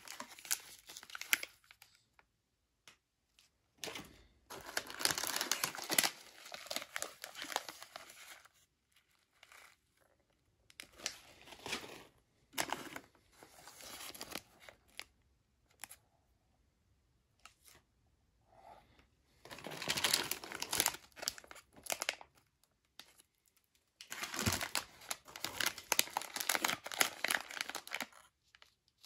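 Crinkly plastic snack wrappers rustling as they are lifted out of a cardboard box and handled, in several spells with quiet gaps between.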